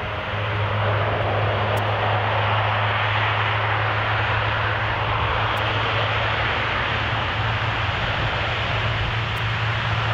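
A Lockheed Martin C-130J Hercules's four Rolls-Royce AE 2100 turboprops at takeoff power during its takeoff roll. A loud, steady, deep propeller hum runs under a rushing engine noise, swelling in the first second and then holding steady.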